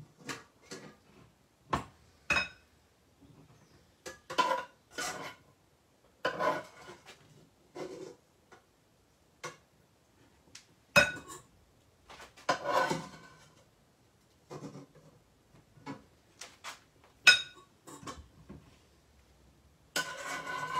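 Metal spoon and ladle clinking and scraping in a frying pan of stock: irregular short knocks with a few longer scrapes, the loudest about eleven and seventeen seconds in.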